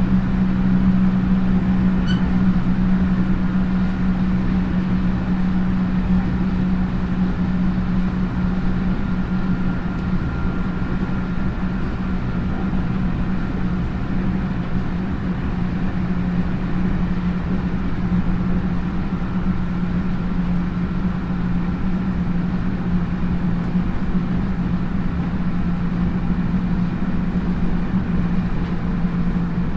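JR 311 series electric train (motor car KuMoHa 311-2) running at speed, heard from on board: a steady rumble of the wheels on the rails with a constant low hum. The noise eases slightly over the first several seconds, then holds level.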